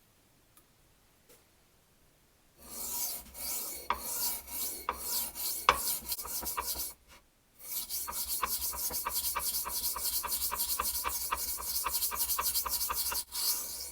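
Steel knife blade being stroked back and forth across a soft sharpening stone, a rasping scrape with each pass. It starts a couple of seconds in with slower, uneven strokes, pauses briefly, then settles into a fast, even run of about five strokes a second that stops near the end.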